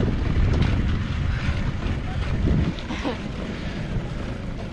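Wind buffeting the microphone with a steady low rumble while riding a tandem bicycle along a paved path.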